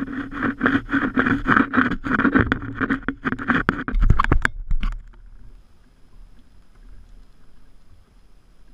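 Knocking and rattling as a cast net is gathered and loaded for a throw from a kayak, its lead weights clacking, for about five seconds. After that only a faint hiss remains.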